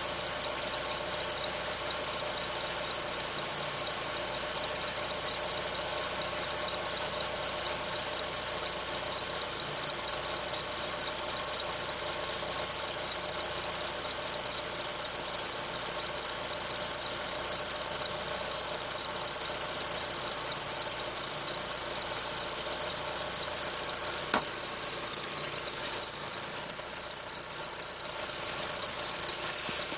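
Skoda Octavia Tour's 1.8 T AGU turbocharged four-cylinder engine running steadily, with a squeak coming from the alternator belt area. There is a single sharp click late on.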